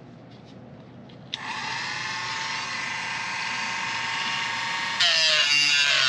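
Dremel rotary tool with a cut-off wheel switched on about a second in, spinning up to a steady high whine. About five seconds in it gets louder and its pitch wavers as the wheel grinds into a rusted screw head on the pump housing.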